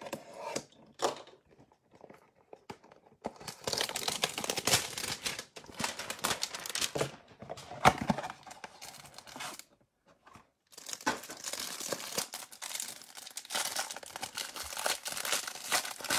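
A few sharp scrapes of a utility knife cutting a cardboard trading-card box, then a long stretch of cardboard and plastic wrap tearing and crinkling as a pack is pulled out and its cellophane wrapper is peeled off a stack of cards, with a short pause about ten seconds in.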